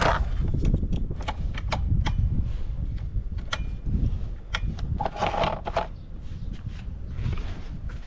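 Scattered clicks and knocks over a low rumble, with a short rattle about five seconds in; no engine is running.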